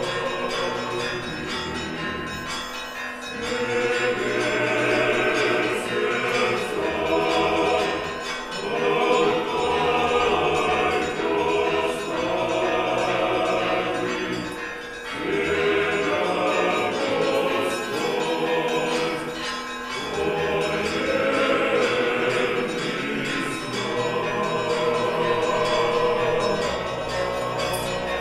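A choir singing church music in long held phrases with brief pauses between them, with church bells ringing along with it.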